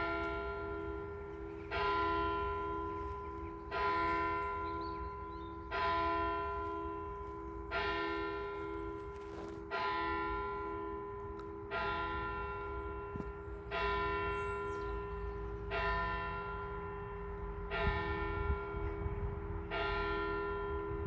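A single church bell tolling: eleven strokes of the same pitch about two seconds apart. Each stroke rings on into the next, over a steady pulsing hum.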